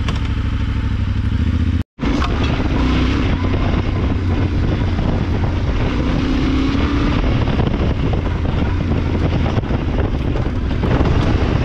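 Yamaha Ténéré 700 World Raid's parallel-twin engine idling, then, after a short break in the sound about two seconds in, running steadily as the motorcycle rides along a dirt track.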